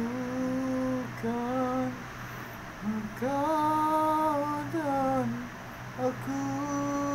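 A voice humming long, held notes that slide up and down, with short breaks between them.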